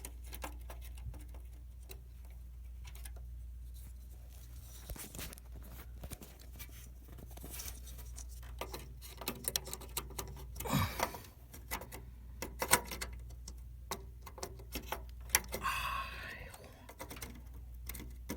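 Scattered small clicks and taps of RAM modules being handled and pressed into the motherboard's memory slots, over a low steady hum.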